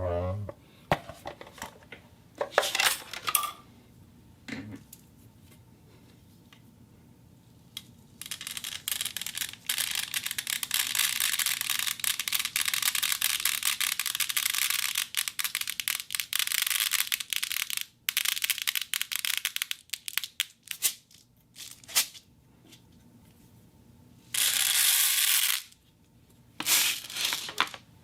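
A wooden box used for sound effects: a few knocks and short scrapes at first, then about twelve seconds of dense rapid clattering like small hard objects rattled or scraped in it, and near the end two short hissing scrapes.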